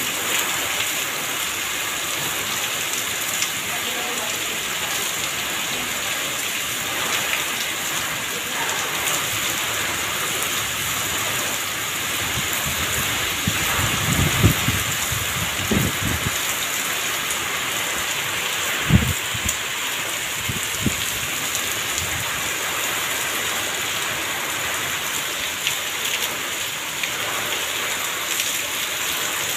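Heavy rain pouring steadily onto a paved lane and foliage, a dense even hiss. About halfway through, and again a few seconds later, come a few brief low thumps.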